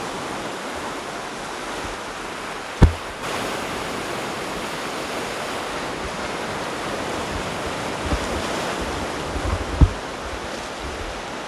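Surf breaking and washing on a beach, a steady rushing noise. Two brief low thumps on the microphone, about three seconds in and near the end.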